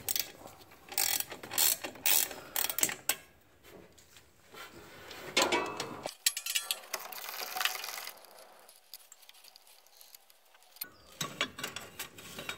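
Ratchet wrench clicking in several short runs as the mounting bolts of a brake proportioning valve are tightened, pausing for about two seconds before starting again near the end.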